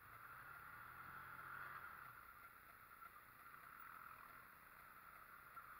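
Faint, muffled off-road vehicle engine running, its low hum fading out about two seconds in, over a steady hiss.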